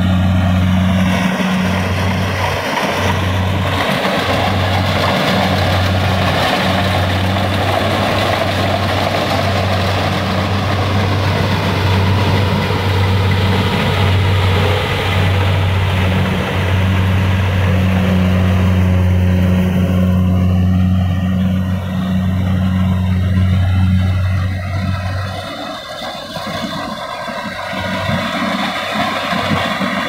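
Kubota rice combine harvester running under load while cutting and threshing, a steady engine-and-machinery drone with a strong deep hum. About 25 seconds in, the deep hum stops abruptly and the sound drops, then rises again.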